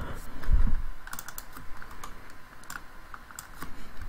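Computer keyboard typing: scattered, irregular key clicks, with a low thump about half a second in.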